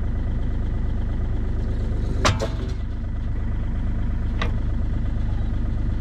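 Bobcat E35 mini excavator's diesel engine idling steadily. A sharp knock comes a little over two seconds in, and a fainter click about two seconds later.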